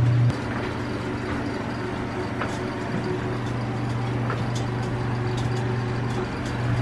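Steady low machinery hum and air noise inside a submarine compartment, with a few faint clicks; the hum drops in level about a third of a second in.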